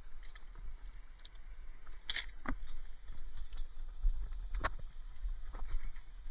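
Scrap being rummaged through by hand: a few scattered knocks and clatters over a steady low rumble.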